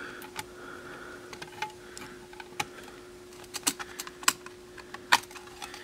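Scattered light clicks and taps of the plastic and metal parts of an in-dash six-disc CD changer mechanism as a released disc is handled and worked out by hand, over a faint steady hum.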